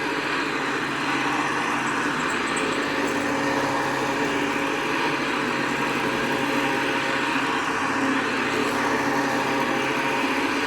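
Hoover Convertible model 69 upright vacuum cleaner running steadily, a motor hum under a broad, even rush of air.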